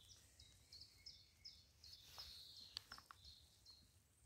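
Faint birdsong: a small bird giving a run of short, high chirps, one after another, over a low steady rumble. A few soft clicks come between two and three seconds in.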